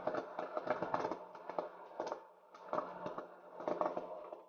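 Popped popcorn being scooped by hand out of a hot air popper's chamber: dry rustling and crackling in irregular bursts, over a faint steady hum.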